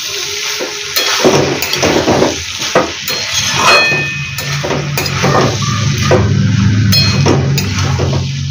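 A metal spatula scrapes and knocks against an aluminium kadai in repeated strokes while chickpeas are stirred and fried in masala and oil, with a light sizzle. A low hum runs underneath from about four seconds in.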